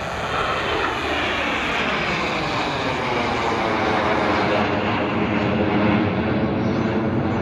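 An aircraft flying past low at an airshow: a loud engine roar that grows louder, with its pitch sweeping downward as the aircraft passes.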